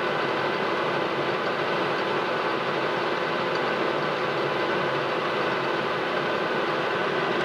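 Metal lathe running steadily with its spindle turning a small brass workpiece: an even mechanical hum with several steady tones.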